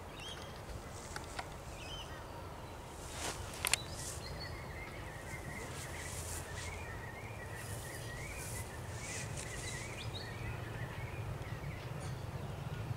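Outdoor ambience: small birds chirping and twittering over a steady low rumble, with a few short clicks.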